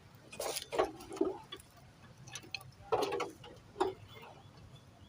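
A handful of short, sharp clicks and knocks of tools and engine parts being handled, the loudest about one second and three seconds in, over a low background hum.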